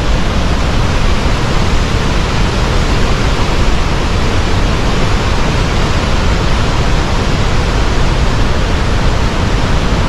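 Kaieteur Falls, a large waterfall, making a loud, steady rush of falling water with no breaks or changes.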